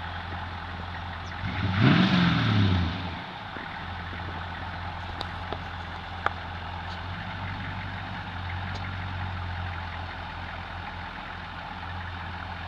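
Truck engine idling steadily. About two seconds in it revs briefly and falls back in pitch, with a hiss over it. There is a single sharp click about six seconds in.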